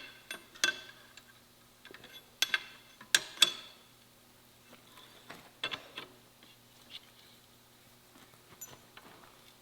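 Steel on steel: a forged hook and tooling clinking against a steel rack bar, about eight sharp metallic clinks with a short ring, most in the first few seconds and two more about six seconds in.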